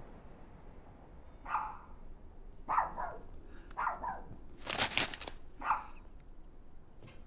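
A dog barking, about five short barks roughly a second apart. A newspaper's pages crackle briefly about five seconds in.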